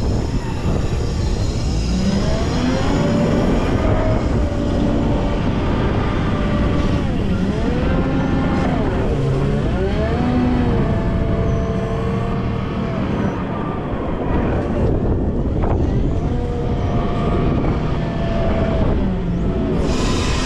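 Volvo L90F wheel loader's diesel engine working under load while clearing snow. Its pitch rises and falls repeatedly as the revs change, with a whining tone over a constant low rumble.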